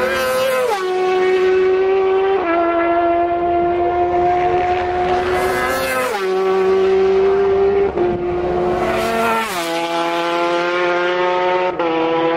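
Three TT racing motorcycles pass one after another at full speed. Each engine's high wail drops sharply in pitch as it goes by, with a short rush of wind noise. About two seconds after each pass the note steps down suddenly as the bike shifts up a gear, then climbs again as it pulls away.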